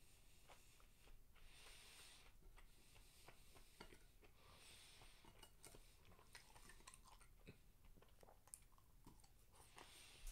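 Faint chewing of diced beef steak and rice, with scattered small clicks of chopsticks against the plate and bowl.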